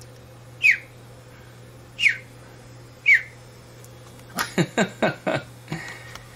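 Cockatiels calling: three short, loud chirps about a second apart, each falling sharply in pitch. Then a quick run of shorter chattering notes from about four seconds in.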